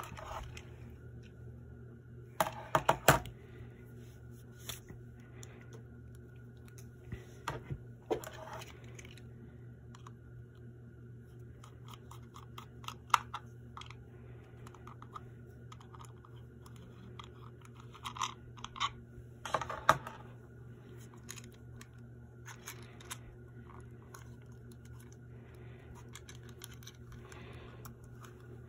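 Zenith Royal 20 transistor radio being handled and its case pried open: scattered clicks, snaps and scrapes in a few short clusters, the loudest a few seconds in and again about two-thirds through, over a faint steady hum.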